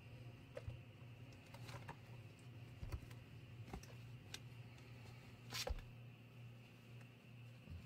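Kittens scrabbling and wrestling on a quilted nylon cloth: faint rustles with scattered sharp little scratches and clicks from their claws and paws, the loudest about three and five and a half seconds in.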